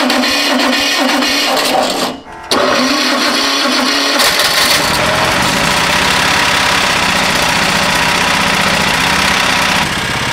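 Old air-cooled Wisconsin two-cylinder engine being cranked by its electric starter, a half-second pause about 2 seconds in, then cranked again. It catches about 4 seconds in and keeps running with an even beat. This is an engine whose rings the owner believes are worn out.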